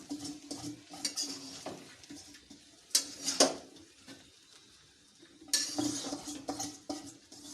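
A spatula scraping and knocking against a kadai as fried rice with carrots and beans is stirred and mixed together. There are two loud knocks about three seconds in, a brief lull, and then the scraping resumes.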